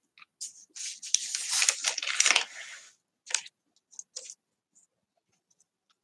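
Paper and fuzzy yarn rustling and scratching under fingers as the yarn is pressed down onto a glued paper page, for about two seconds, followed by a sharp click and a few light ticks.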